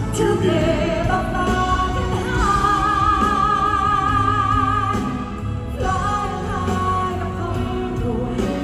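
Male and female singers performing a pop ballad duet live over band accompaniment; a long note is held with vibrato from about two to five seconds in.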